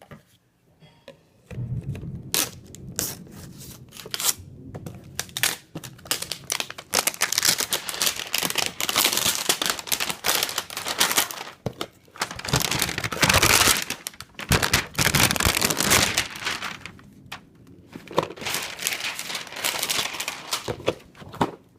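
The wrapping of a boxed manga set being torn and crinkled off by hand, in irregular bursts of crackling with many sharp clicks. It starts about a second and a half in and is loudest in the middle and near the end.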